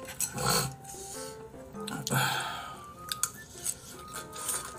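Soft background music under close eating sounds: slurping and chewing from a bowl, with a few light clicks of utensils.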